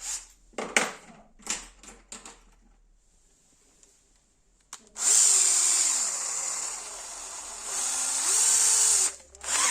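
Power drill running for about four seconds, its motor pitch dipping and then rising again, after a few light clicks and a short quiet spell.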